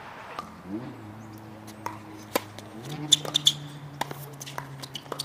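A series of sharp knocks, three loud ones in quick succession about three seconds in, over a steady low mechanical hum that starts about a second in and steps up in pitch about three seconds in.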